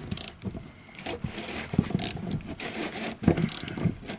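Tool clicking and scraping on the locking ring of a Honda CR-V's in-tank fuel filter assembly as the ring is turned loose, in irregular knocks with a few short scraping rasps.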